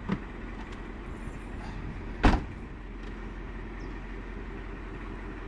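Steady low rumble of a car, with a small click near the start and one loud thump a little over two seconds in.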